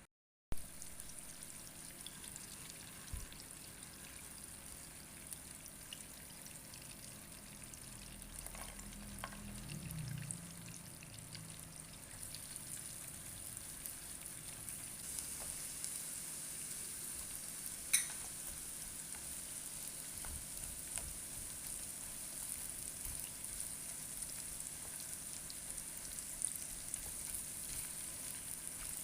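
Food frying in a pan: a steady sizzle with stirring and occasional small utensil clicks, and one sharp clink about eighteen seconds in.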